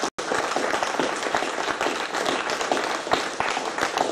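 Audience applauding, many people clapping together at a steady pace, with the sound cutting out for an instant just after the start.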